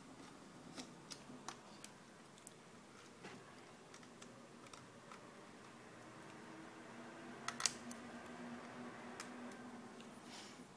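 Handling noise from a Window N80 Android tablet being turned in the hands: faint scattered clicks and taps, with a sharper pair of clicks about seven and a half seconds in.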